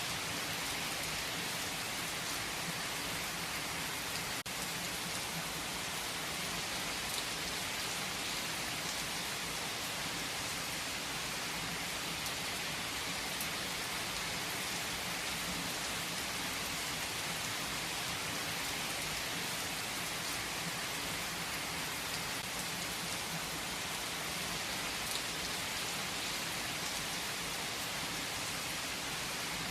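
Steady rain falling: an even hiss with scattered faint drop ticks, and a faint click about four seconds in.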